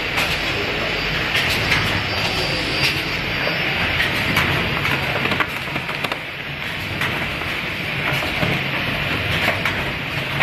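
X-fold wrapping machine running, wrapping rolls of biscuits: a steady low hum under frequent irregular mechanical clicks and clatter.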